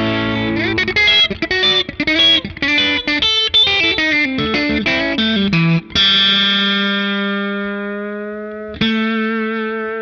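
Electric guitar played through a Strymon Compadre set to heavy squeeze-mode compression with little dry signal and a full-range clean boost. Quick picked single-note lines give way about six seconds in to a chord that rings out with long, even sustain, and the chord is struck again near the end.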